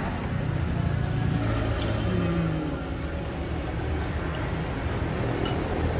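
Road traffic running past, a steady low engine rumble, with one short sharp click about five and a half seconds in.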